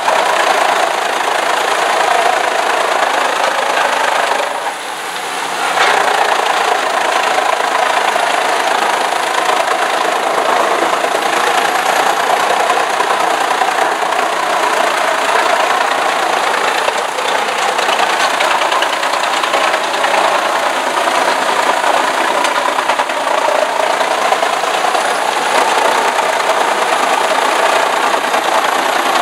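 Heizohack truck-mounted wood chipper running under load, chipping branches and logs as they are fed in: a loud, steady, dense mechanical din that dips briefly about five seconds in.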